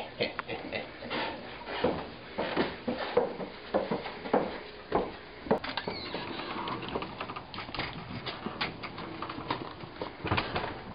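Footsteps on a hard floor, an uneven series of knocks about every two-thirds of a second, fewer and lighter in the second half.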